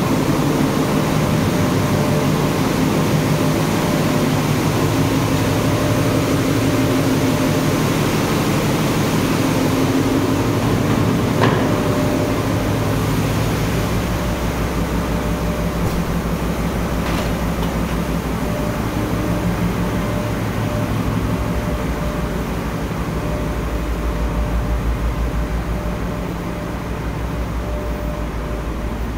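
Machinery in a container ship's engine room running: a loud, steady drone with low hum tones and a deep, rapid pulsing that grows stronger in the second half. A single sharp knock comes about eleven seconds in.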